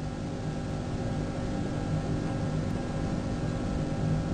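A car engine idling with a steady low hum under a faint hiss as the car creeps forward.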